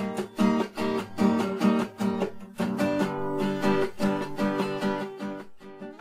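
Background music of a strummed acoustic guitar in a quick, even strumming rhythm.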